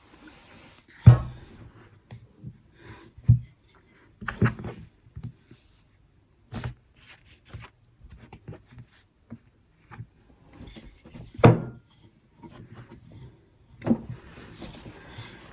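Scattered knocks and clunks of kitchen things being handled on a worktop, the loudest about a second in and again past the middle, with faint rustling between.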